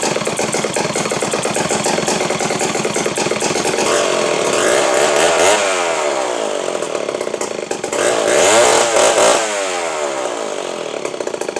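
Two-stroke chainsaw engine running, revved up and back down twice, about five and nine seconds in; the second rev is the loudest.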